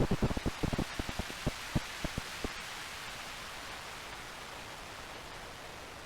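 Synthesized gentle thunderstorm from a VCV Rack modular synthesizer patch. A rapid run of low thumps and crackles over a rain-like hiss thins out and stops about two and a half seconds in, leaving the steady hiss slowly fading.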